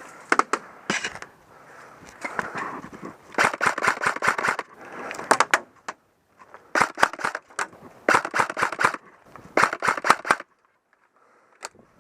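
Airsoft electric guns firing: a few short shots early, then about five rapid bursts of quick, evenly spaced clicking shots, with a brief quiet gap near the end.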